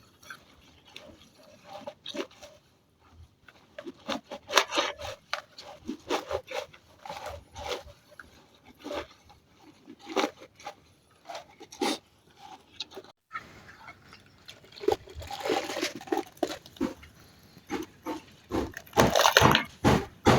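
Bitter leaves being scrubbed and squeezed by hand in a bowl of water, an irregular run of crunchy, squishy strokes, louder for a while near the end.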